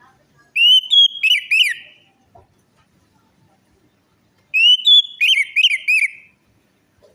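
Orange-headed thrush song: two loud whistled phrases of quick rising and falling slurs, the second starting about four and a half seconds in, with a pause between.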